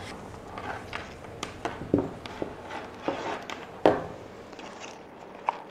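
A small camera and its cable being handled and set down on a wooden tabletop: a scatter of light knocks and taps, the loudest about four seconds in, with faint rustling between them.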